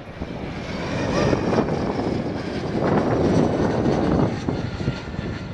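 Airliner engines passing, the sound swelling to a peak about three to four seconds in and then easing, with strong wind buffeting the microphone.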